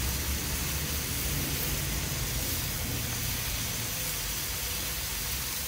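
Calf liver and sliced onions sizzling on a hot Blackstone flat-top griddle, a steady hiss.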